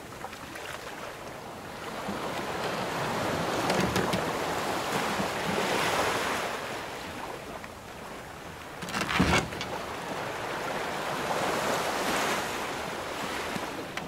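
Ocean waves washing against a wooden sailing ship in slow swells, with one short, loud knock of the ship's timbers about nine seconds in.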